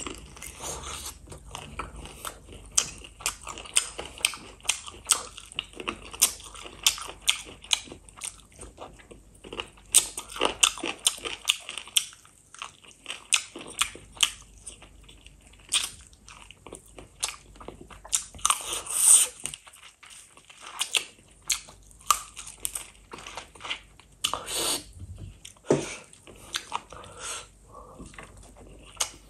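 Close-miked eating of spicy chicken feet in gravy: biting and chewing, with many sharp, irregular crunching clicks from the skin and cartilage.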